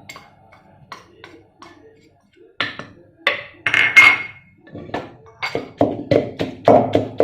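Pestle pounding chillies, garlic and shrimp paste in a mortar: a few scattered taps and knocks at first, then steady pounding at about three strokes a second from around five seconds in.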